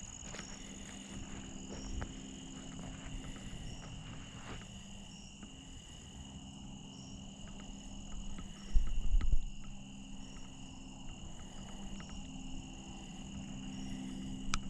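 Insects chirring steadily outdoors, heard as two unbroken high-pitched tones, with small scattered clicks. About nine seconds in there is a brief, loud, low rumble.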